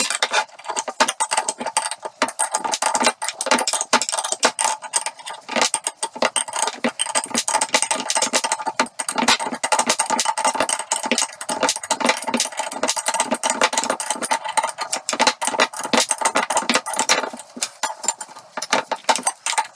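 A spanner working the nut along a threaded pulling bar, with rapid, continuous metal clicking and rattling, as the tool draws needle roller bearings into a Classic Mini front top suspension arm.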